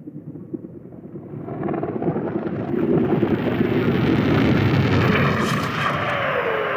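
Sci-fi film sound effects: a rumbling rush of noise that grows louder over the first three seconds and then holds, with a tone gliding down in pitch near the end, like a craft sweeping past.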